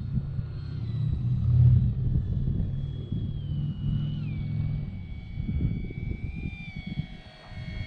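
A motorcycle engine rumbling, with gusts buffeting the microphone. Over it, the thin whine of an RC plane's electric motor steps down in pitch a couple of times as the throttle changes.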